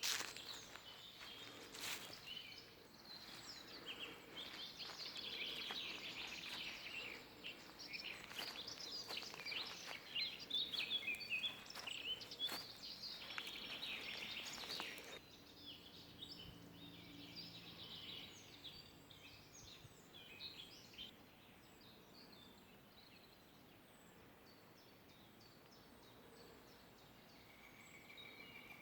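Forest ambience with small birds chirping and singing, dense for the first half and joined by scattered clicks; about halfway it drops abruptly to a quieter background with only a few faint chirps.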